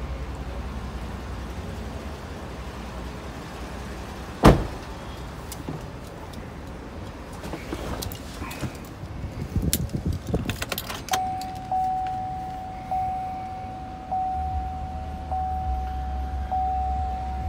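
A GMC Sierra 1500 pickup's door shuts with one loud thud, followed by key jangling and clicks. From about eleven seconds in, the dashboard warning chime rings steadily, pulsing about once a second. A few seconds later the engine starts and idles as a low rumble under the chime.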